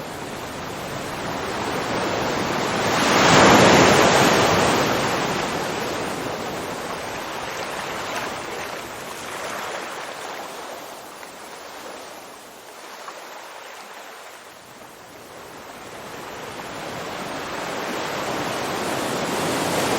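Ocean waves: a large wave crashes about three and a half seconds in and washes out slowly, then the next swell builds toward the end.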